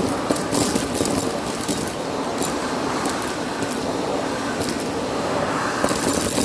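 Vacuum cleaner running over a rug: a steady drone with scattered crackling, rattling clicks.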